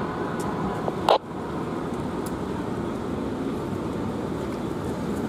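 Street traffic: vehicle engines running in slow, stop-and-go traffic as a steady rumble. About a second in there is one sharp, very short burst.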